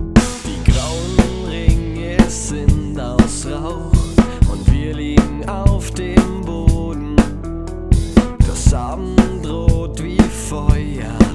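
Drum kit played along to a band recording: steady kick and snare hits with cymbal crashes over sustained bass and guitar. Crashes about a second in, again near the middle and near the end.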